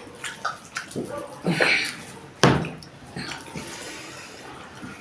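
Close-up eating sounds: wet chewing, mouth smacks and food being mixed, with a sharp click or knock about two and a half seconds in.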